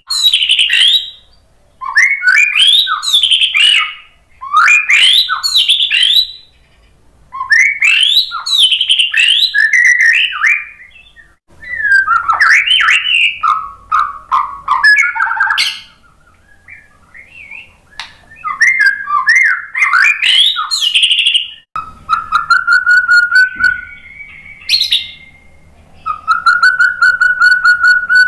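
White-rumped shama singing loud, varied phrases of quick whistles and trills, each a second or two long, with short pauses between them. Near the end, the song turns to long, steady whistled notes with a buzzy rattle above them.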